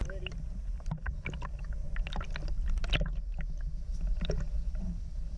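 Underwater sound picked up by a submerged camera: a steady low rumble with many scattered small clicks and ticks from the water.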